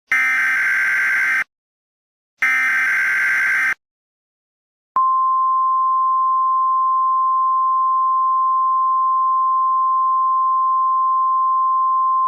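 Emergency Alert System SAME header: two harsh, rapid data bursts of about a second each, a second apart. About a second later comes NOAA Weather Radio's steady 1050 Hz alert tone, held for about seven seconds and then cut off. This is the signal that opens a tornado warning broadcast.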